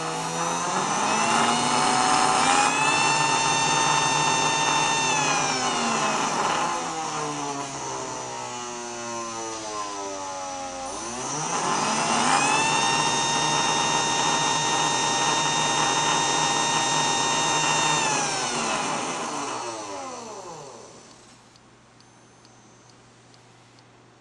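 Small brushed DC motor on a PWM speed controller, whining as it is run up to speed and back down twice. Its pitch climbs over the first couple of seconds, holds, then slides down. It climbs again about halfway through, holds, and winds down a few seconds before the end, leaving a faint steady low hum.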